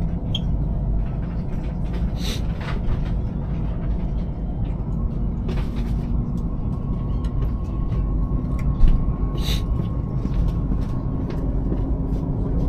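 Inside a Chinese high-speed train carriage, the train running with a steady low rumble, a faint steady hum, and a few light clicks.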